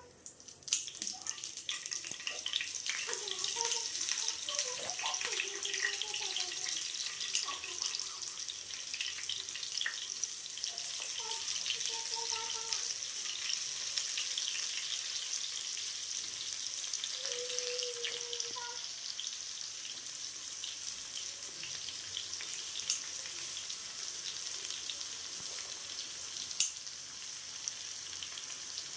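Food frying in hot oil in a cooking pan: a steady sizzle full of small crackles that starts abruptly about half a second in.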